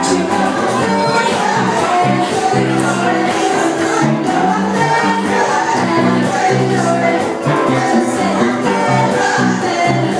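Live band playing amplified, with electric guitar and a woman singing lead into a microphone.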